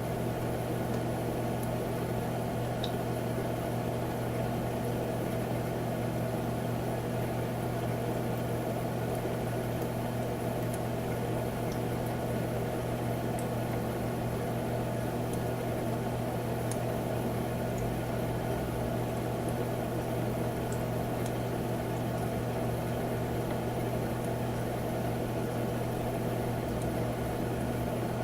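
Humidifier running steadily: a constant low hum with an even noise over it and a few faint ticks.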